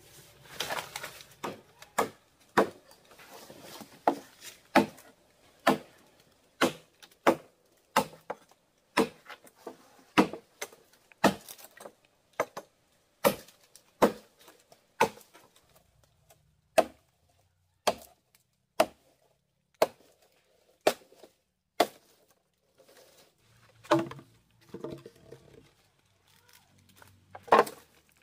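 Repeated chopping: a blade striking wood in sharp single blows, about one a second, thinning out to a few spaced strokes near the end.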